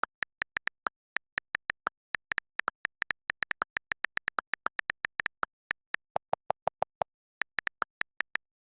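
A fast, uneven string of short high-pitched electronic blips, about five a second, with a lower-pitched run of blips about six seconds in.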